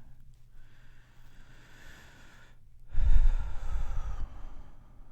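A person's breathing close to the microphone: a slow, soft breath in, then a louder, heavy sigh out about three seconds in that lasts just over a second, a weary sigh of tiredness.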